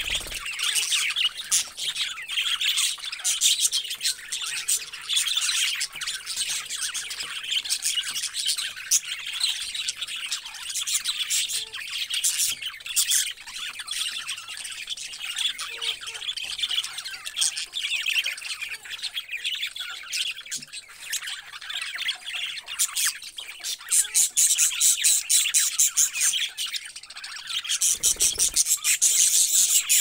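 Budgerigars chirping and chattering continuously, with louder, faster runs of chatter in the last few seconds.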